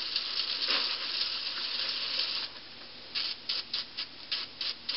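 Easy-Off oven cleaner aerosol can spraying onto a curling iron barrel: one continuous hiss for about two and a half seconds, then several short spurts.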